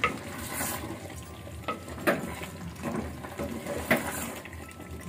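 A spoon stirring chicken curry in a clay pot (matka), knocking and scraping against the earthenware a handful of times over a steady hiss.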